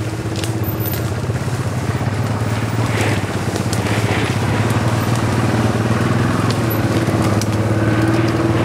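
Arctic Cat ATV engine running at low speed while the quad pushes through thick brush, with scattered snapping and scraping of branches and twigs against it. The engine grows gradually louder as the ATV approaches.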